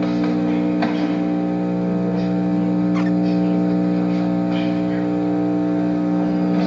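A steady low electrical hum on an old analog video recording, with faint gym noises over it: a couple of sharp knocks, one about a second in and one about three seconds in, and faint voices.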